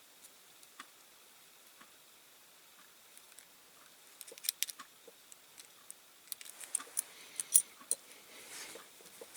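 Light, scattered clicks and taps from handling a small diecast toy truck and its wheels while new rubber tyres are worked on. It is nearly quiet for the first few seconds, then a run of sharper clicks follows, the loudest about seven and a half seconds in, with a soft rubbing near the end.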